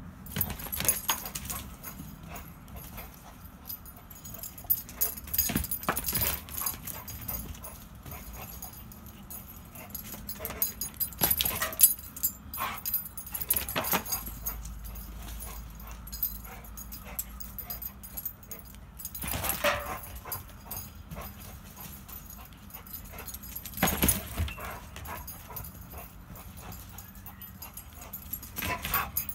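Dog giving short yips and whimpers every few seconds while chasing a laser pointer's dot, with a steady low background between them.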